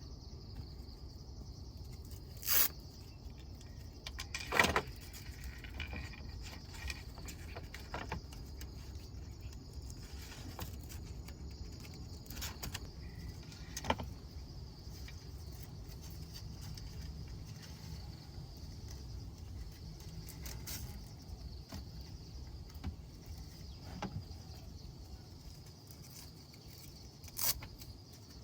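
Velcro straps being wrapped and fastened: scattered short rasps and knocks of handling, a few seconds apart, the loudest two in the first five seconds and one near the end.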